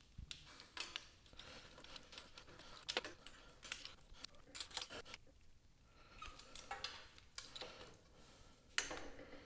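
Faint metallic clicks and clinks from a folding hex key set being handled and turned on a mounting bolt, in scattered irregular taps, one sharper click about three seconds in.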